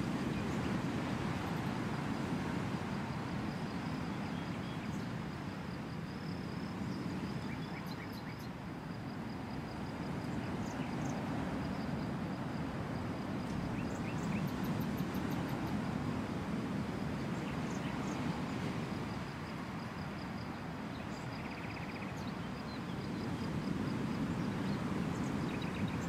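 Outdoor wind noise, a low rushing that swells and eases every few seconds, with faint small high chirps now and then.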